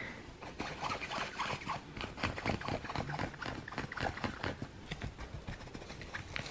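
A three-week-old cocker spaniel puppy moving about in her pen: faint, irregular light taps and rustles, several a second.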